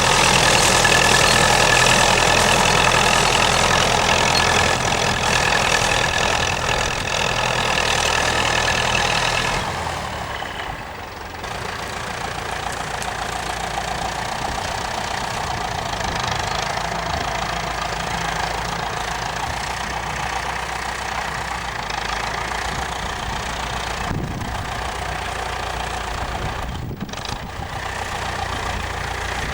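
Massey-Ferguson 65 tractor engine running steadily; about ten seconds in it drops to a quieter, lower running that carries on to the end.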